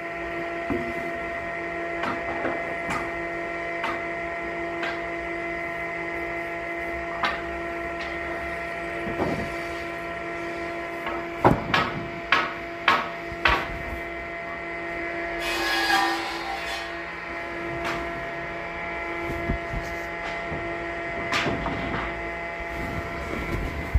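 Sawmill machinery running with a steady hum, a series of sharp wooden knocks around the middle, and a short hissing swell a few seconds later.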